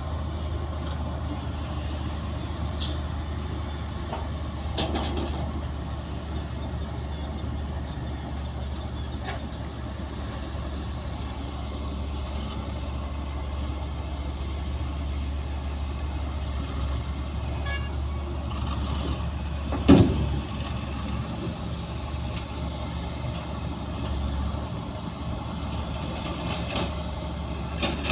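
Heavy diesel earthmoving machinery running steadily with a low drone. There are a few light knocks, and one loud bang about twenty seconds in.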